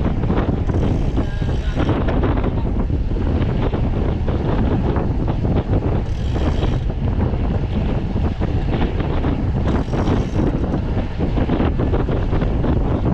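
Steady, heavy wind noise buffeting the microphone, the rush of air over a camera on a moving bicycle.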